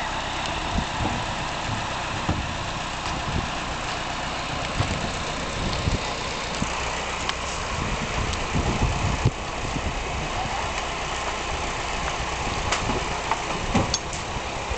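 Farm tractor engine running steadily while hauling a heavy raft up out of the water, with scattered knocks throughout.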